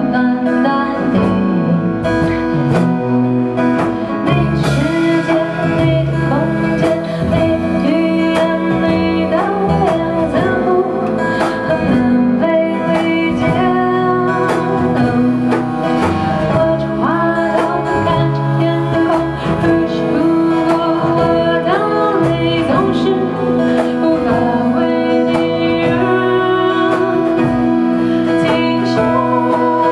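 Live song: an acoustic guitar strummed and picked, with a singer's voice carrying the melody.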